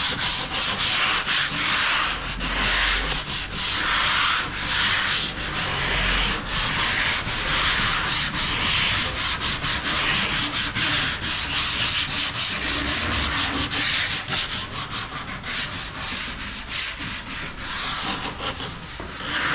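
Wooden cabinet doors being sanded by hand with sandpaper in quick back-and-forth strokes, a rasping scrub that swells and fades about once or twice a second. The doors are being sanded smooth to prepare them for paint or lacquer.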